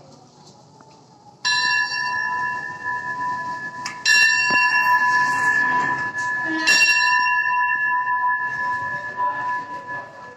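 Station platform bell struck three times, about two and a half seconds apart. Each stroke rings on with the same clear, steady tones and fades slowly. It is the signal for the train to depart.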